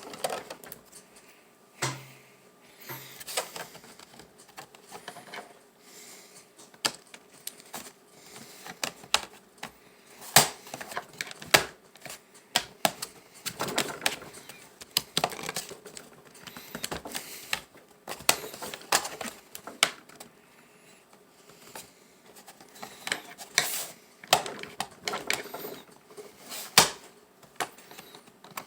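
Irregular clicks, taps and small knocks of plastic and metal parts as a laptop is being taken apart by hand: screws, casing and tools clattering on its body.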